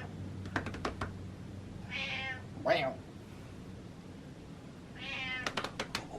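Domestic cat meowing: one meow about two seconds in, a short, louder one right after it, and another near the end, with a few sharp clicks in between.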